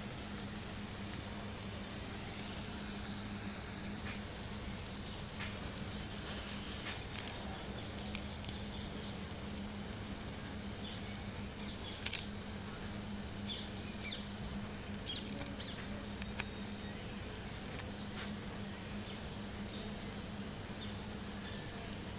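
Egg omelette frying in a grill pan: a steady faint sizzle with scattered small crackles and pops.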